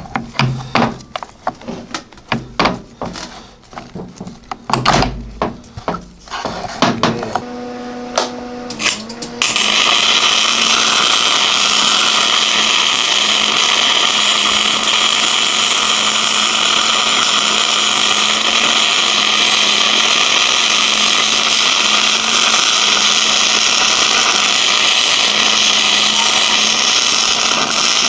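Metal gear parts clink and knock as they are handled in an open mower transaxle case. About ten seconds in, an electric arc welder strikes up and runs with a loud, steady hiss over a low hum, welding the differential gears solid to lock the axle.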